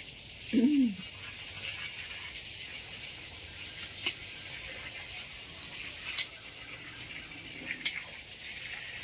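A few sharp clicks as a person works by hand among garden plants, the loudest about six seconds in and a quick double click near eight seconds, over a steady high hiss. A brief voice-like sound comes near the start.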